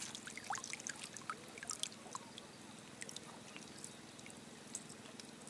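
Faint water trickling and dripping: a scatter of small plinks and rising drip sounds, most of them in the first two seconds, over a soft steady hiss.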